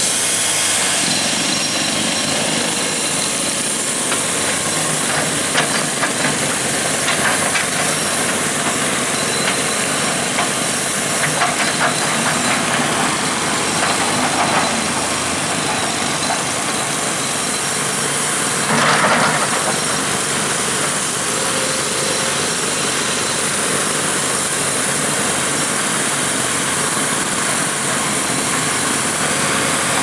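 Demolition-site machinery noise: a steady rush of engines with scattered clanks and knocks, and a louder surge about 19 seconds in.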